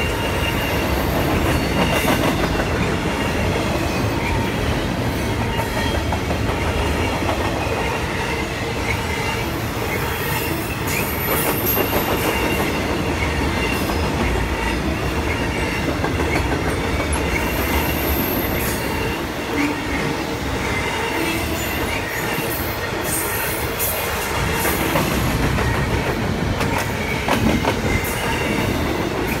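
A long intermodal freight train of double-stack container and trailer cars passing, with a steady rumble of steel wheels on rail. Over it run scattered clicks and a faint, high, steady wheel squeal.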